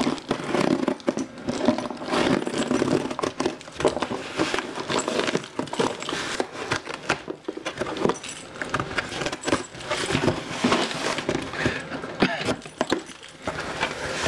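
A small knife on a keyring slitting the packing tape on a cardboard box, with the keys jangling and irregular scraping and clicks from the cardboard as the box is handled.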